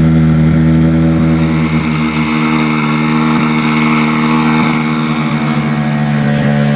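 An engine idling steadily, with an even low hum that does not rise or fall.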